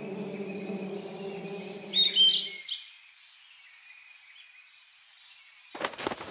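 Small forest birds chirping, with a louder run of chirps about two seconds in. A wasp's low wingbeat buzz runs under them for the first two and a half seconds and then stops. A short burst of sharp rustling comes near the end.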